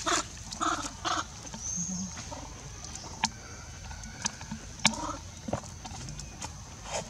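Baby macaques giving a few short squeaks in the first second or so, followed by scattered sharp clicks, over a steady high insect whine with a brief bird chirp about two seconds in.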